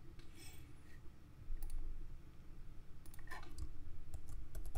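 A few scattered clicks from a computer keyboard and mouse, with a brief squeak about half a second in.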